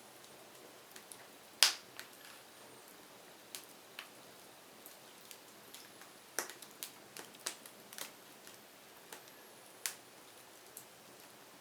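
Firewood burning and crackling: irregular sharp pops and snaps over a faint steady hiss. The loudest pop comes about one and a half seconds in, and a quick run of snaps follows past the middle.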